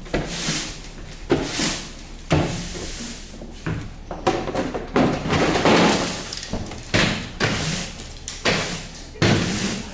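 Push broom sweeping the plywood floor of an enclosed cargo trailer: repeated scraping swishes, with a few sharp knocks among them.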